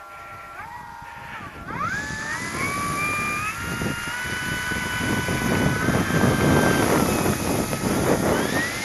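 Electric motor and propeller of a large RC model Corsair (260 kV motor) whining up as the throttle opens for its takeoff run on grass. The pitch climbs in steps about one and two seconds in, holds, eases briefly near seven seconds, then rises again near the end, over a rushing noise that grows with the power.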